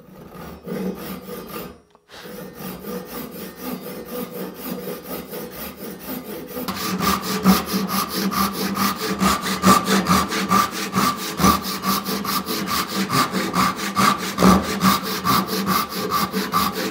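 Handsaw rip-cutting a thick hickory billet clamped in a vise: a steady rhythm of back-and-forth saw strokes, which grows louder and quicker about seven seconds in.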